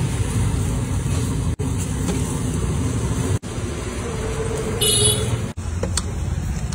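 Steady street traffic rumble with a short, high vehicle horn toot about five seconds in. The sound drops out briefly three times where the footage is cut.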